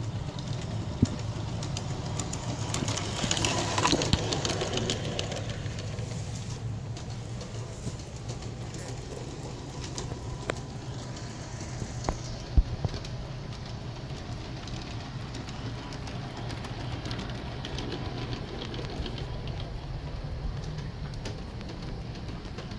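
Aristo-Craft G-scale 0-4-0T steam locomotive model running on brass track, its electric motor and gears humming steadily, with occasional clicks from the wheels on the rails. It gets louder about three to five seconds in as the train passes close by.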